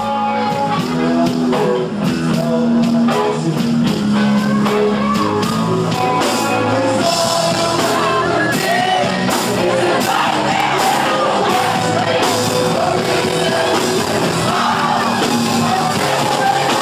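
Loud rock music with shouted singing, electric guitars and a steady drum beat.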